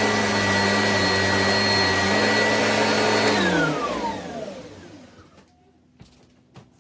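Oreck Commercial 2100RHS upright vacuum cleaner running steadily with a high whine, then switched off about three seconds in, its motor winding down in falling pitch over a couple of seconds. Two faint clicks near the end.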